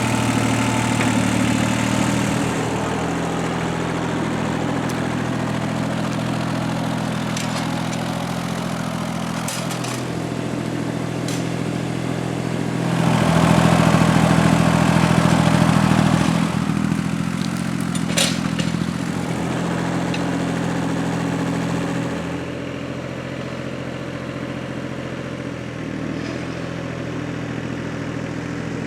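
Tractor engine running steadily while pulling a box blade to level soil, growing louder for about three seconds near the middle as it works harder, with a few sharp clicks along the way.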